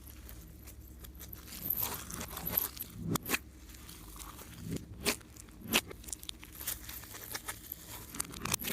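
Slime being squished and worked by hand, giving irregular sticky crackles and pops, a few of them louder.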